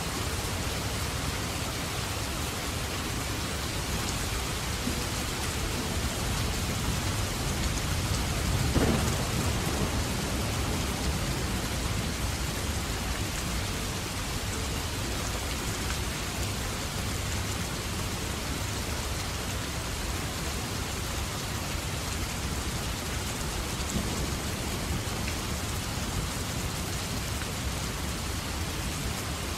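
Steady rain falling, an even hiss of drops. About nine seconds in there is a single brief thump.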